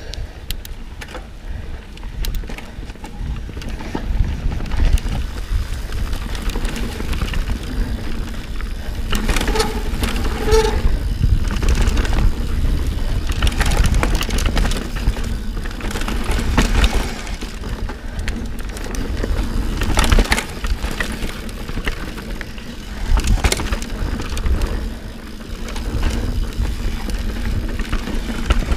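Santa Cruz Hightower Plus mountain bike riding fast down a dirt singletrack: a continuous rumble of the tyres on the dirt, with many short rattles and knocks as the bike goes over roots and bumps.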